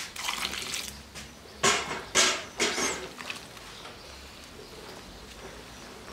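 Hands working water into flour in a large plastic basin: several loud wet slapping, squelching strokes in the first three seconds, then quieter kneading.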